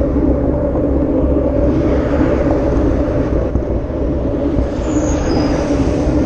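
Vehicle engine running steadily under way, a dense low rumble, with a faint brief high squeak about five seconds in.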